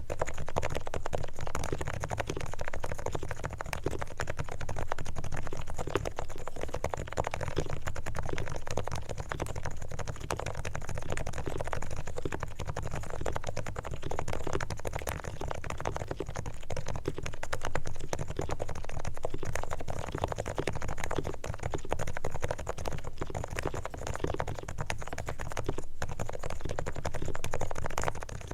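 Continuous fast typing on a Realforce R3BT Topre electrostatic-capacitive keyboard with silent 45 g switches. Keystrokes follow one another densely without a pause.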